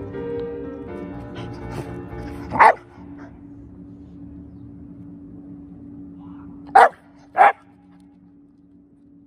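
A Shiba Inu barks three times: one short bark about two and a half seconds in, then two in quick succession near seven seconds. Soft background music plays underneath.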